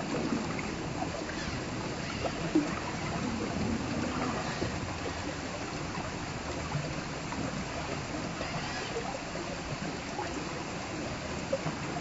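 Shallow stream water running and splashing over rocks around the wheels of an RC rock crawler, with one short sharp knock about two and a half seconds in.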